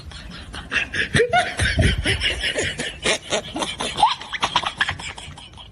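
Laughter in quick repeated pulses, loudest through the middle and dying away near the end.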